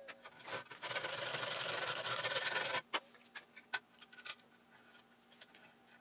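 Pull saw cutting through the edge of a cherry board: a rasping hiss of saw strokes that stops abruptly about three seconds in. After it, only faint scattered taps and rubs of a hand on the wood.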